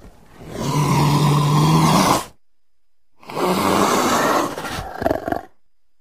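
Leopard giving two long, rough roars, each about two seconds, with a pause of about a second between them; the second breaks up into short choppy pulses near its end.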